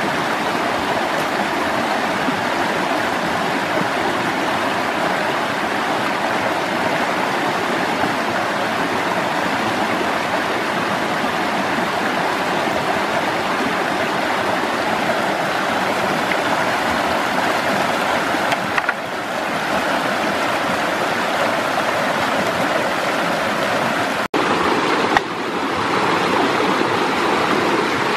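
Steady rushing of a shallow rocky stream spilling over a small waterfall. About three-quarters of the way through it cuts out for an instant, then resumes with a slightly different rush of water.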